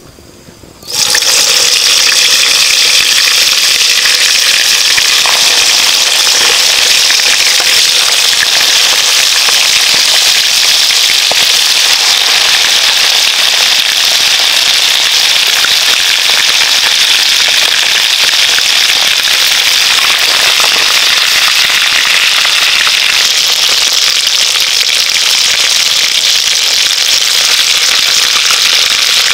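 Whole quail deep-frying in hot oil in a wok, a loud, steady sizzle with fine crackling that starts suddenly about a second in as the birds go into the oil.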